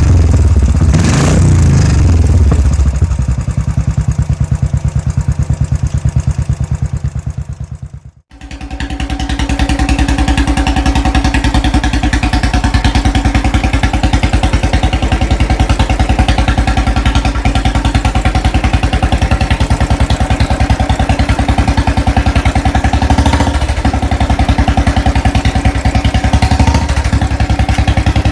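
Royal Enfield Bullet single-cylinder engine running through an aftermarket silencer: two quick revs at the start settle into a steady thumping idle. The sound fades out at about eight seconds, and a second steady idle follows.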